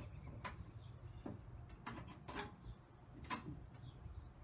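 Scattered sharp metallic clicks and clinks, about six in four seconds, from hand work on a car battery's cable terminals and hold-down bracket.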